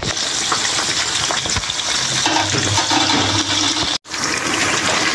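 Chicken necks deep-frying in hot oil in a pan: a loud, steady sizzle. It cuts out for an instant about four seconds in and then resumes.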